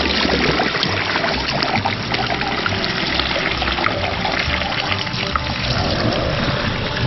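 Fermenting Merlot wine being poured from a jug through a strainer funnel into a glass demijohn, splashing steadily as it fills. Background music with a steady beat plays underneath.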